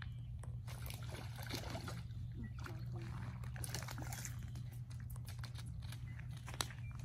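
A hooked trout splashing at the surface of shallow water as it is reeled to the bank: a run of short, irregular splashes.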